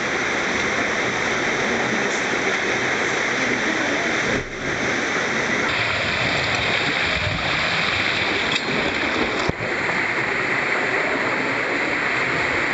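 Rushing water of a mountain torrent pouring down rock chutes and small waterfalls into pools, a loud, steady rush, with a brief dip twice where the footage is cut.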